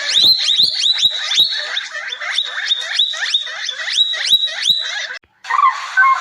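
An animal making rapid, repeated high chirping calls, about four a second, each sweeping sharply up in pitch. Near the end they stop and, after a brief break, a different, noisier animal sound begins.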